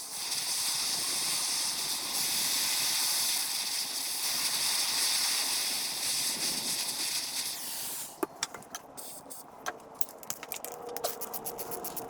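Aerosol spray can hissing steadily for about eight seconds, then cutting off, followed by scattered sharp metallic clicks of hand tools. It is penetrating spray going onto heated exhaust manifold studs to free them.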